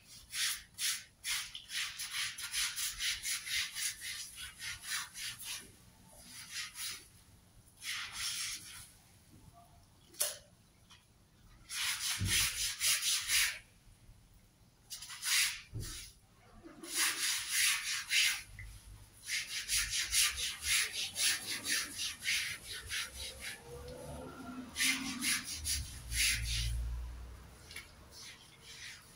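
Scrub brush scrubbing a wet, soapy carpet in quick back-and-forth strokes, in spells of a few seconds with short pauses between.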